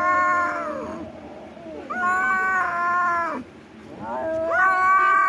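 Kitten yowling in three long, drawn-out meows, each held steady and then dropping in pitch at the end, during rough play-fighting.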